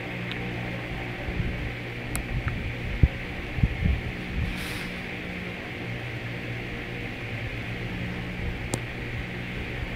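Steady electrical hum with a hiss over it, with a few soft low thumps around three to four seconds in as a hand moves over the notebook, and two faint clicks.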